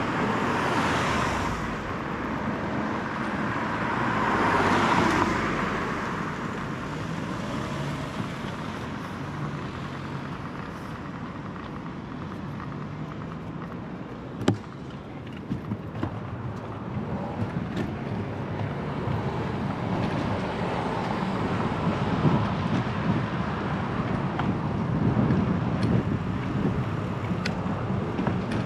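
City street traffic heard from a moving bicycle: a steady road hiss, with vehicles passing in two swells, one near the start and one about five seconds in. A single sharp click comes about halfway through, followed later by a few lighter ticks.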